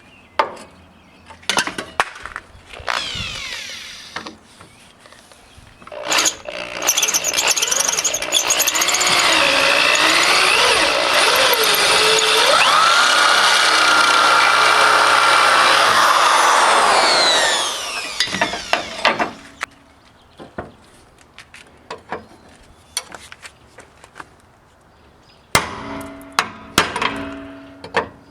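Electric drill running under load for about twelve seconds, boring into a rusted steel frame rivet, its pitch wavering as it bites. Near the end come several sharp hammer strikes on metal, each with a brief ring.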